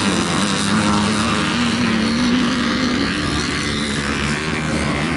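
Vintage motocross motorcycles racing on the track, a steady engine buzz whose pitch rises and falls slightly.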